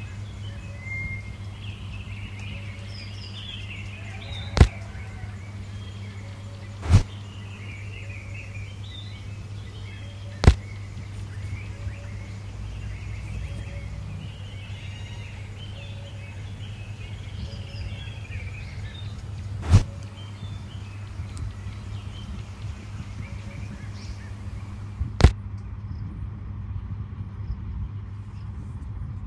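Birds chirping in the background over a steady low hum, broken by five sharp knocks spread through as the small moulded brick wall and roof pieces of a miniature animal house are set in place. The birdsong stops abruptly near the end.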